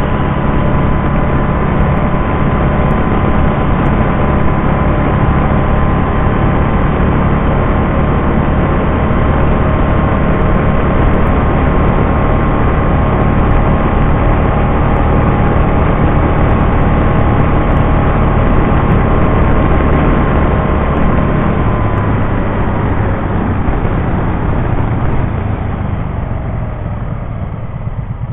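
Can-Am Spyder RT three-wheeled motorcycle running steadily at road speed, with its engine and wind and road noise on the mounted camera. Over the last few seconds the noise falls away as it slows down.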